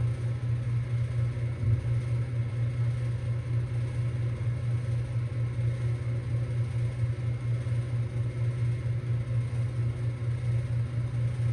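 Ruud Achiever heat pump outdoor unit running steadily shortly after start-up in heating mode: a deep, even compressor hum with a rattle over it.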